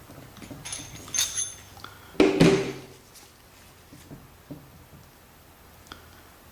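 Small metal valve parts and hand tools handled on a workbench: a couple of short ringing clinks, then a louder knock about two seconds in, with a few faint clicks after.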